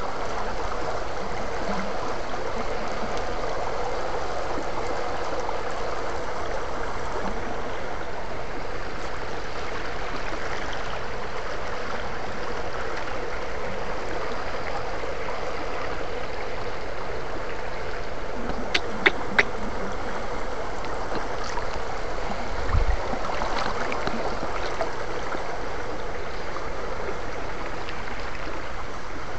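Shallow rocky stream water running steadily, with a faint steady hum under it. About 19 seconds in come three sharp clicks, and a few seconds later a low thump.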